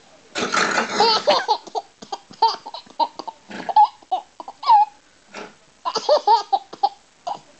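Baby laughing: a long fit of laughter about half a second in, then a string of short, high giggles and belly laughs with brief pauses between them.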